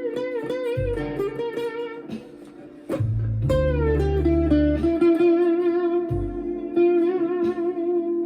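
Harley Benton ST-Acoustic guitar through a Behringer Vintage Overdrive pedal and a Marshall MG15CFX amp, playing a single-note lead with string bends, vibrato and long held notes over low bass notes. The playing drops quieter for a moment about two seconds in.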